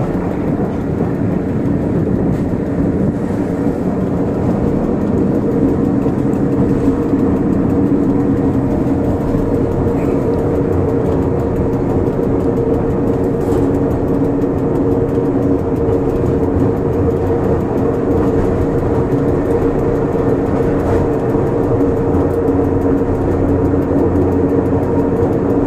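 Electric cogwheel railcar of the Pilatus Railway running downhill on its rack track, heard from inside the cab: a steady running drone with a constant low hum.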